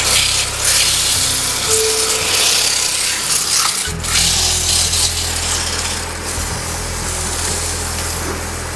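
Abrasive cloth rubbing against a wooden bowl as it spins on a water-wheel-driven wood lathe: a steady sanding hiss, strongest for the first four seconds and then easing, over a low steady hum.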